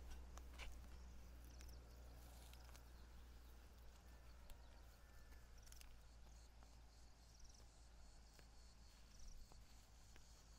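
Near silence: faint outdoor field ambience, with a faint high chirp recurring every couple of seconds and a few light clicks.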